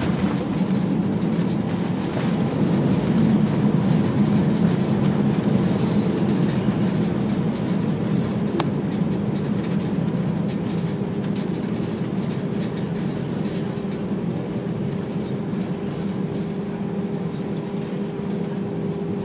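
Cabin noise of an Airbus A320 rolling out on the runway after landing: a steady low rumble of engines and wheels that peaks a few seconds in and then eases off slowly as the aircraft slows. A faint steady hum joins about halfway through.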